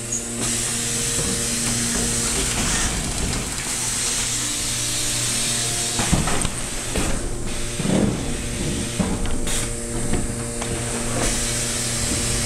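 Automatic cardboard case erector running: a steady machine hum with air hiss, and from about six seconds in a series of sharp clacks and pneumatic air blasts every second or so as it forms the boxes.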